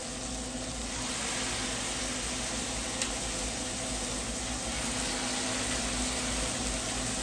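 Chicken breasts sizzling steadily in butter and oil on a hot flat-top griddle, with one light tap about three seconds in.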